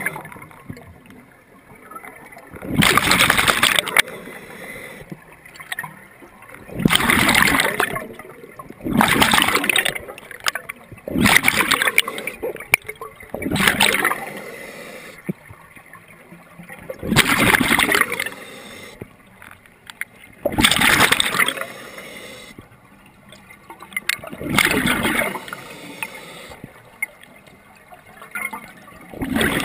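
Scuba diver breathing through a regulator underwater: a loud rush of exhaled bubbles about every three to four seconds, about eight breaths, with quieter stretches between.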